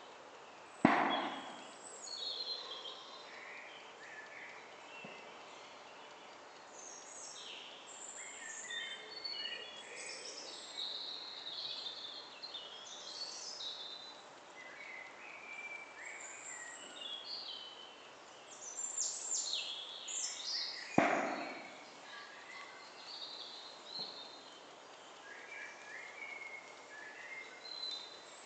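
Woodland birdsong: many small birds chirping and trilling high up throughout. Two sharp, loud bangs, each with a short echoing tail, cut across it about a second in and again some twenty seconds later.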